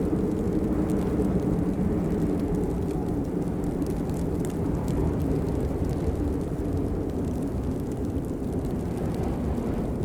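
Steady rain, a dense even hiss with a deep low rumble under it and a few faint scattered drop ticks.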